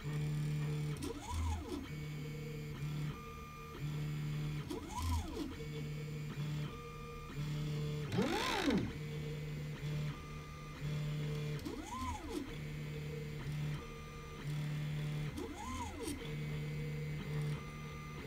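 Anet A8 3D printer's stepper motors running an auto bed leveling routine: steady humming tones that switch on and off in steps, and about every three to four seconds a whine that rises and falls as the print head travels to the next probe point, the loudest about halfway through.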